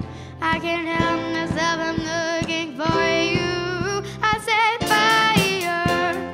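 Young voices singing a pop song over a backing track with a steady beat; the accompaniment fills out and gets louder about five seconds in.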